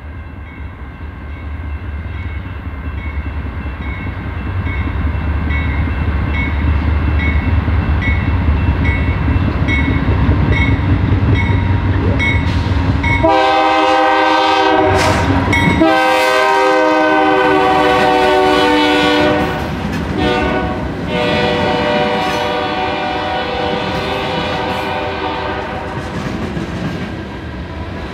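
A train approaches with a low rumble that grows louder, while a bell rings steadily. About halfway through, the locomotive sounds its multi-chime air horn in long blasts with short breaks between them.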